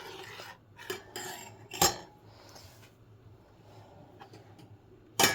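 A kitchen utensil knocking and scraping against a cooking pot and dishes: a few sharp knocks about one and two seconds in, and a loud metal clink that rings briefly near the end.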